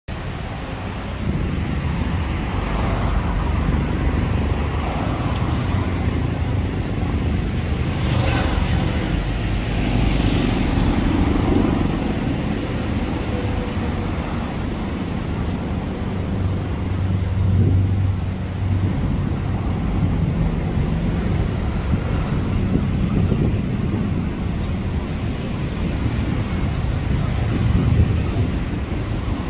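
Steady outdoor urban background noise, mostly a low rumble, with a brief sharp sound about eight seconds in.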